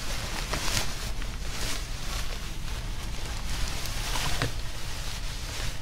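Plastic garbage bags rustling and crinkling as they are handled and shifted, with a steady low hum underneath.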